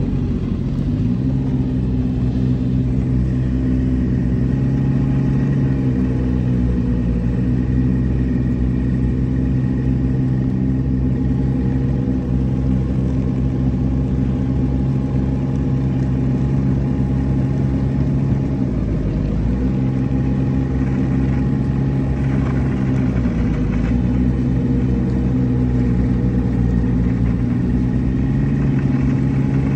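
Snowmobile engine running steadily, heard from the rider's seat, its pitch dropping briefly and coming back up a few times.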